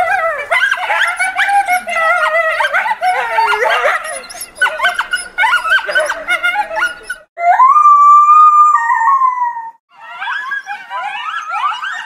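Coyotes yipping and howling in a group chorus of many overlapping short, bending calls. About seven seconds in, one long held howl drops in pitch at its end, then a run of quick yips follows.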